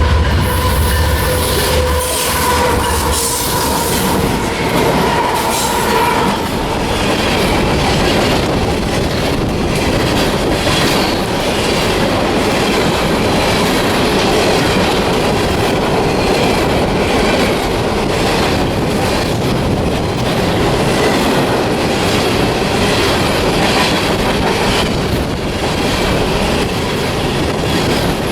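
A fast CSX coal train rushing past close by: the locomotive's low rumble gives way within the first few seconds to the steady rolling clatter and wheel noise of the coal cars, with wind buffeting the microphone. A steady tone fades out about six seconds in.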